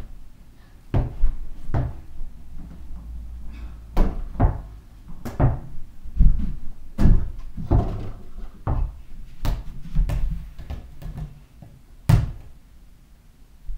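Irregular thumps and knocks, about a dozen, from a small ball striking an over-the-door mini basketball hoop's backboard and the door and bouncing off, mixed with footsteps on the floor. The sharpest knock comes near the end.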